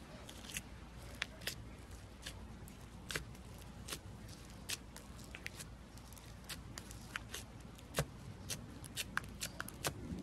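Foam slime (floam) being squeezed and worked by hand, crackling with irregular sharp pops and clicks, several a second.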